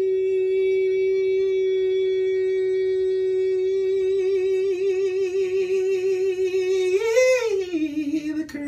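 A solo male voice singing gospel a cappella holds one long high note, a slow vibrato creeping in after a few seconds. Near the end it swells up and turns down to a lower note, still wavering.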